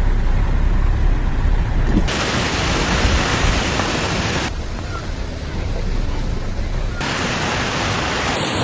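Steady rushing noise of heavy rain and wind in a storm, with a heavy low rumble in the first two seconds. The sound changes abruptly about every two to three seconds.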